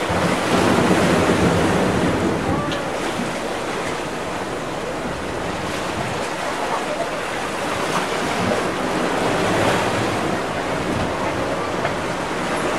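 Steady rush of wind on the microphone mixed with the wash of seawater, a little louder in the first two seconds.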